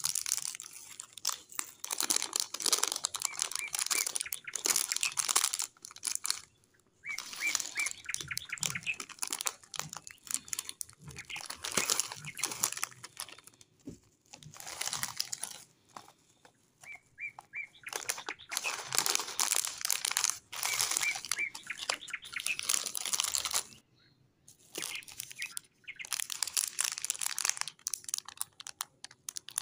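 Thin plastic snack wrappers crinkling as they are handled and squeezed, in bursts with short pauses between, with a few short high chirps here and there.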